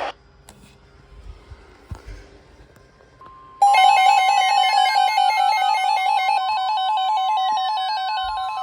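Emergency Alert System attention signal: after a quiet stretch, a loud alarm tone starts abruptly about three and a half seconds in, warbling rapidly between two pitches over a steady higher tone. It marks the start of a new emergency alert broadcast.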